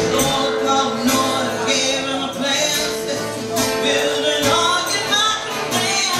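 A woman singing with acoustic guitar accompaniment, holding long notes over steady strumming.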